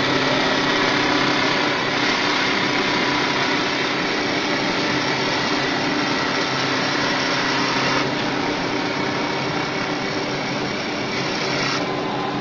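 CNC wood-turning lathe running, its carbide knife cutting a spinning wooden spindle: a steady machine hum under the cutting noise, changing in tone a few times.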